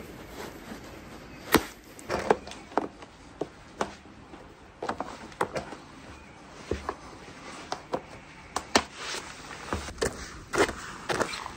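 Irregular sharp clicks and knocks as rubber-and-steel-coil Yaktrax ice cleats are stretched and snapped onto rubber boots. Near the end come closer-spaced steps of the cleated boots on ice-glazed concrete.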